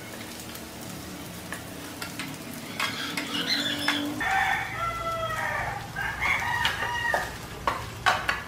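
Wooden spatula scraping and clicking against a pan as sliced shallots and garlic are stirred in oil, with a light sizzle. About three seconds in, a rooster crows for several seconds.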